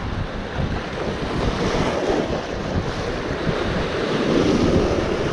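Sea waves breaking and washing over a rocky shore, with strong wind buffeting the microphone in a flickering low rumble. The wash swells to its loudest about four to five seconds in.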